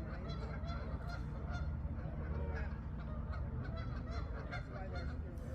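A flock of geese honking, many short calls overlapping, over a steady low rumble.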